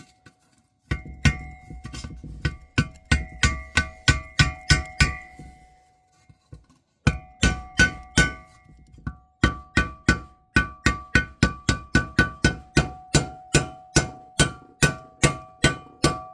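Hammer blows, one hammer striking another, driving a bearing into a Kawasaki FB460V engine; each metal-on-metal blow rings with a clear pitch. Two runs of about three to four strikes a second, with a pause of about a second and a half between them.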